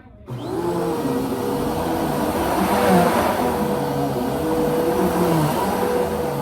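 Bissell PowerForce Helix Rewind Pet upright vacuum cleaner switching on and running loud and steady, its motor pitch wavering a little.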